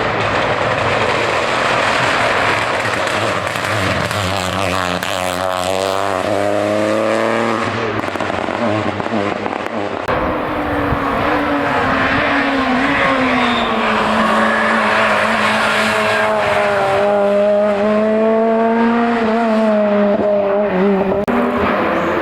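Hill-climb racing car engine running hard, its pitch rising and falling as it accelerates and changes gear, over a steady rushing noise.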